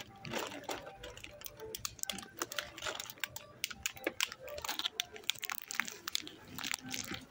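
A rapid, irregular run of small clicks and taps, with faint voices in the background.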